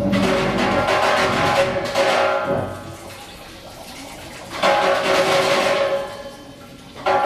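Noise Barrels performance: a dense, harsh noise texture over steady droning tones. It drops back to a quieter hiss about two and a half seconds in, surges again near the middle, falls away again about six seconds in, and returns just before the end.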